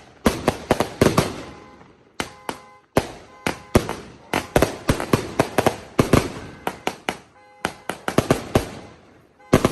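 Two 350-gram Thunder and Lightning firework cakes firing together: volleys of sharp bangs, several a second, with short lulls about two and three seconds in and a last loud pair of bangs near the end.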